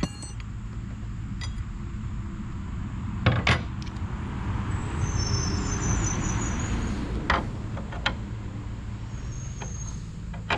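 An engine running steadily at low speed, with a few sharp metal clinks and knocks as hose fittings are handled.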